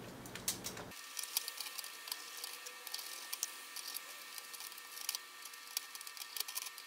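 Light, irregular clicks and taps of small metal nuts and bolts being handled and threaded onto a 3D-printed plastic swivel plate, with a screwdriver working on the bolts.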